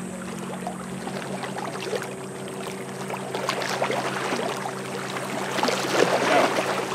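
Steady low drone of a boat's motor out on the lake, under water and wind noise that grows louder about six seconds in.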